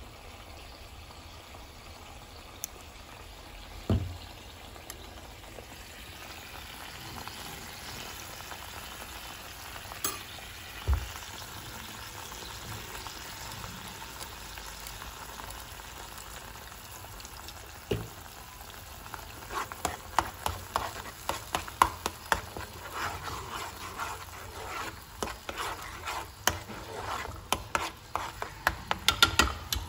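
Tomato mixture sizzling and bubbling in a frying pan, with a few single knocks. From about two-thirds of the way through, a metal spoon stirs it, clicking and scraping rapidly against the pan.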